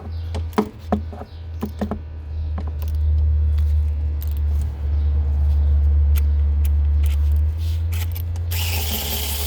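Cordless electric ratchet and its sockets being handled: metal clicks and clatter at first, then a steady low rumble. About eight and a half seconds in, a loud buzzing hiss starts as the ratchet runs.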